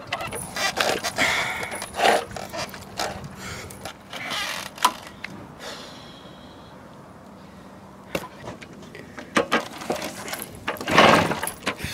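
Garelli Noi moped being pedal-started without the engine catching: the pedal and drive clatter and knock in irregular strokes. There is a quieter lull around the middle, then more pedalling, loudest near the end.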